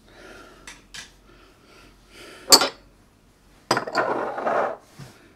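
Small glass shot glasses knocking and clinking as they are set down on a hard counter: several sharp knocks, the loudest about two and a half seconds in, with brief handling noise between them.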